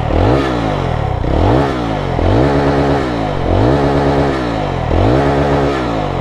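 Jawa 42 FJ's 334 cc single-cylinder engine revving up and easing off about once a second, its pitch rising and falling six times, heard through a mic inside the rider's helmet.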